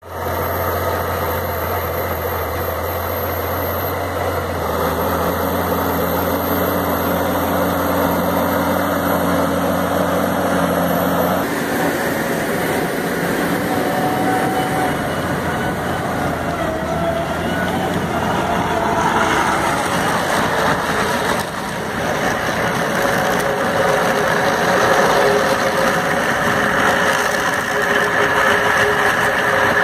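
Tractor engine running under load, driving a Skotee Guarai III stone crusher that grinds through soil and stones. A steady machine drone with a low engine hum; the sound changes about a third of the way through and becomes denser and noisier.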